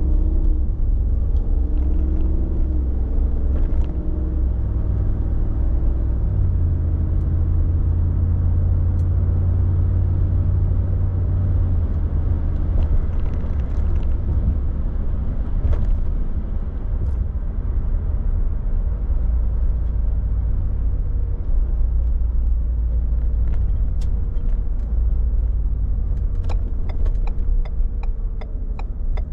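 Stock exhaust of a 2023 Ford F-150's 5.0-litre Coyote V8 running with a deep rumble. Its pitch rises and falls over the first several seconds, then holds steadier. Near the end there is a run of regular ticks.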